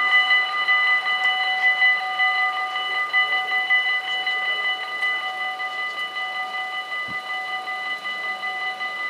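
Dutch automatic level-crossing warning bells ringing continuously with a fast clatter, warning of an approaching train as the half-barriers come down.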